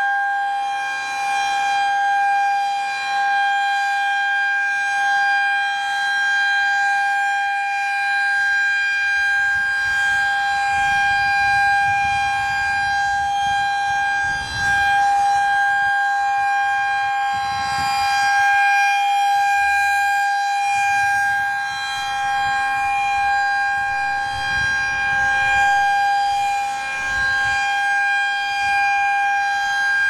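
Federal Signal 2001-SRN electromechanical rotating siren sounding a steady alert tone at one constant pitch. Its loudness rises and falls a little as the horn turns.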